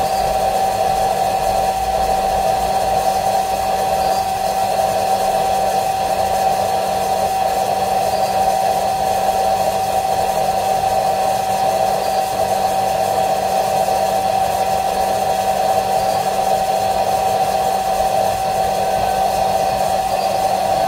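Hair dryer blowing steadily, a constant rush of air with a steady whine, heating a phone's back glass to soften the double-sided tape adhesive that holds it on.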